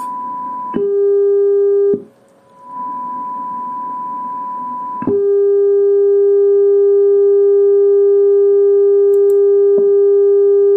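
Receiver audio of two test tones from an SDR with a slow AGC. A steady high tone from the weak signal is cut off by a louder, lower tone from the strong signal for about a second. When the strong signal stops there is a moment of near silence, then the weak tone slowly swells back as the AGC recovers: a sign that the AGC's release time is set too slow. About five seconds in, the strong, lower tone comes back and holds steady.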